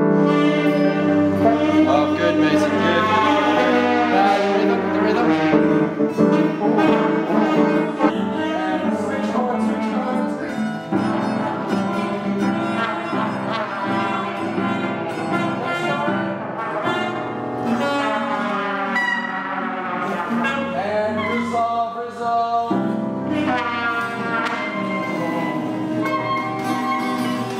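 Mixed ensemble of grand piano, ukulele, acoustic guitars, clarinet, trumpet and French horn playing a piece together, brass and winds prominent.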